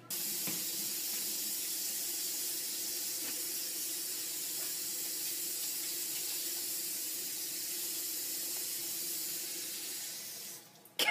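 Kitchen faucet running steadily into a sink, the stream splashing over a cat's fur as it is washed; the water cuts off shortly before the end.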